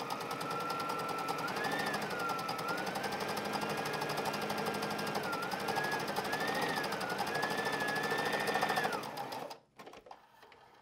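Brother GS2700 electric sewing machine running, sewing a decorative stitch. Its motor whine rises and dips a little with speed over the rapid needle strokes, and it stops near the end.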